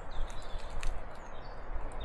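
A few faint high bird chirps over a low outdoor rumble, with a light step or knock or two.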